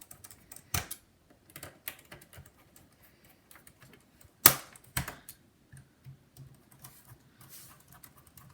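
Scattered small clicks and taps of a precision screwdriver and screws on a laptop's plastic bottom cover as the cover screws are driven in. The sharpest click comes about four and a half seconds in.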